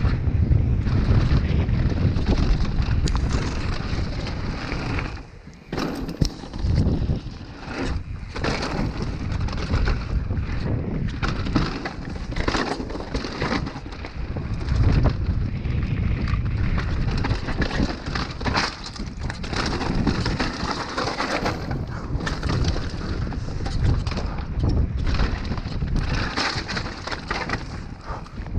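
Downhill mountain bike ridden fast over a dirt and rock trail: wind rushing over the action-camera microphone, tyres rumbling on the ground, and the chain and frame rattling and knocking over bumps. About five seconds in the noise drops briefly, then comes back with a sharp knock.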